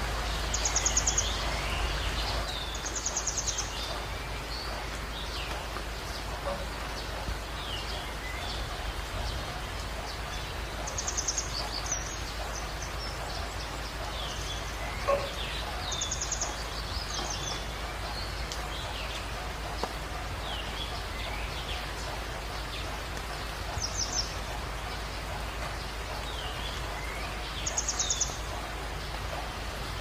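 Steady rain hiss with wild birds calling over it: a short, high, rapid trill comes about six times, between many brief chirping notes. A single sharp click sounds about halfway through.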